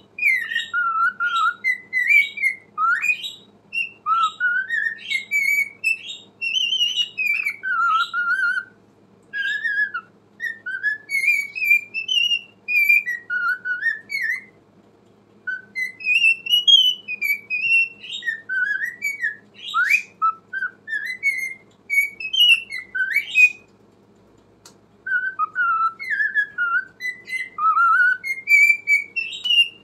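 Cockatiel whistling a warbling song of rising and falling whistled notes, pausing briefly about halfway through and again about three-quarters of the way in.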